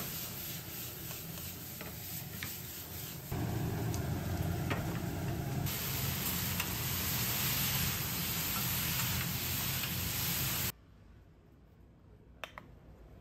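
Metal tongs stirring and ticking against a metal bowl as food cooks over flames, then beef cubes and onions sizzling louder on a flat-top griddle. The sizzle cuts off about ten seconds in, leaving quiet room tone with a single click.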